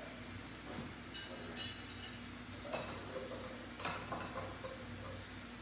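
A few scattered light clicks and taps, as of metal being handled, over a steady low hum.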